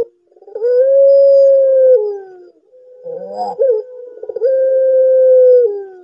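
Puter pelung, a white Barbary dove, giving long drawn-out coos. There are two long, level coos of well over a second each, each sliding down in pitch at the end, with a short rolling, stuttering coo between them.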